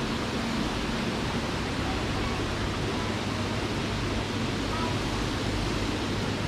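Steady rushing noise with a constant low mechanical hum underneath, unchanging throughout.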